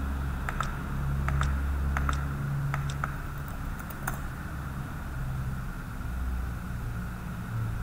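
Computer keyboard typing: about ten scattered keystrokes, mostly in the first four seconds, over a steady low hum.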